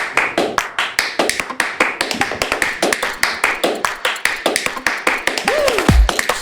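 Opening of an electronic outro track: rapid, evenly spaced clicking percussion, about eight clicks a second. Near the end a pitch drops steeply into a deep bass hit.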